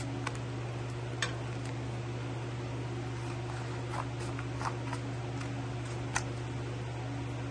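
Scissors snipping through a yellow sticky-trap sheet: a few sharp, irregularly spaced clicks, the clearest about a second in and near six seconds, over a steady low hum.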